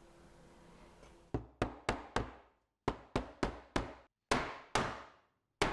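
Hammer blows driving a wooden bow-tie inlay into its recess in a camphor laurel slab: a quick series of sharp knocks starting about a second in, three or four a second in short runs with brief pauses, each trailing off briefly.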